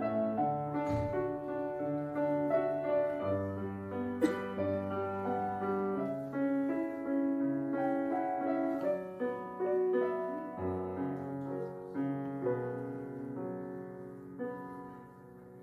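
Background piano music: a slow melody of single notes and chords, getting quieter near the end.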